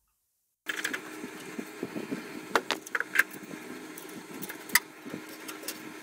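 Metal clicks and clanks of a three-jaw gear puller being worked on an engine's crank pulley, over a faint steady hum; it starts about half a second in, after a moment of silence.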